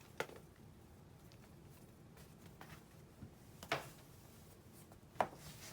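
Faint handling sounds of a keyboard and its cable: three light clicks or taps a second or more apart, with a few fainter ticks between them.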